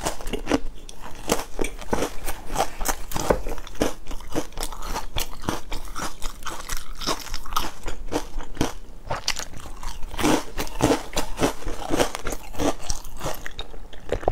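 Close-miked biting and chewing of crisp biscuit pieces: many irregular crunches and crackles, one after another.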